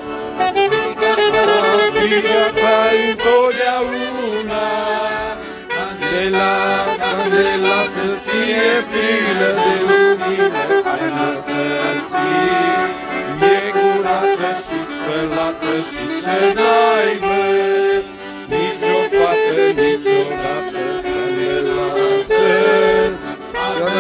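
Piano accordion playing a melody, with notes changing quickly in a continuous run of music.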